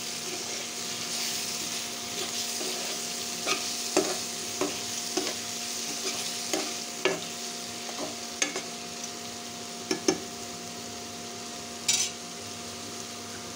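Potatoes, tomato and onion frying in mustard oil in a kadhai, sizzling steadily, while a spatula stirs the masala through. The spatula knocks and scrapes against the pan at irregular moments, about a dozen times.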